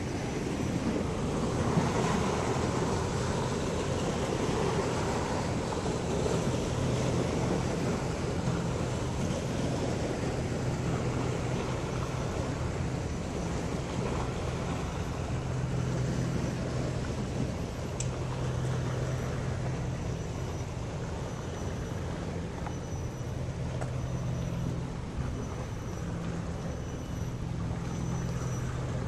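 Steady outdoor rumble of distant engine and traffic noise, with a low hum that swells and fades. A faint high chirp repeats about every second and a half.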